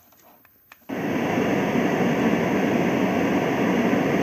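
A click as a white noise machine is switched on, then, just under a second in, a steady even rushing noise from its speaker.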